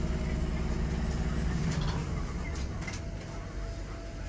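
Interior equipment hum of a Tyne and Wear Metrocar standing at a platform: a steady low drone that drops away about halfway through. A few faint clicks follow, then a faint steady tone.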